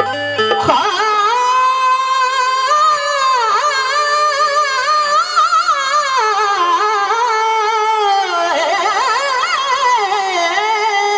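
Devotional naat sung in qawwali style: a male lead singer holds a long, wavering, ornamented vocal line over a sustained harmonium. The drums drop out just under a second in.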